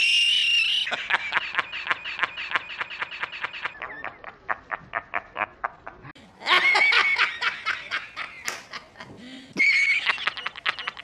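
A man laughing: three times, a high held shriek breaks into a rapid run of short 'ha' pulses, about eight a second, which trail off. The last two bursts come about six and nine and a half seconds in.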